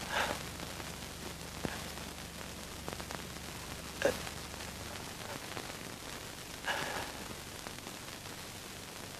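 Steady hiss of an old film soundtrack, with three faint short breathy sighs from a man lying on the ground: one at the start, one about four seconds in and one near seven seconds.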